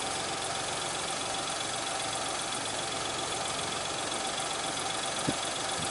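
Car engine idling steadily, with one sharp click about five seconds in.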